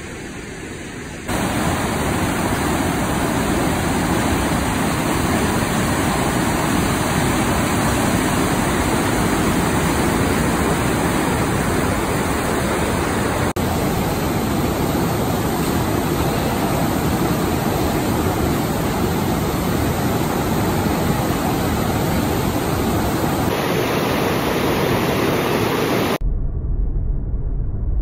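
Fast mountain river rapids rushing over rocks, a steady loud rush of whitewater, heard in several cut-together clips. Near the end it switches to the low rumble of a car driving on a paved road.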